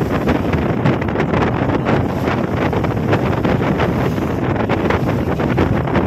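Strong wind gusting across the microphone on the open deck of a passenger ferry, over the steady noise of the boat under way on a rough, whitecapped sea.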